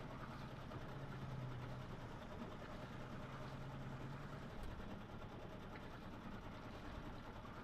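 Small inboard diesel engine of a Dana 24 sailboat running steadily while the boat motors slowly, a low hum under a hiss of wind and water.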